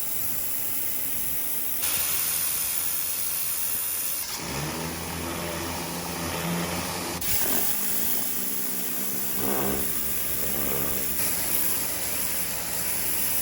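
Ryobi 1600 PSI electric pressure washer running, its motor and pump humming under the hiss of the water jet. The sound changes abruptly several times.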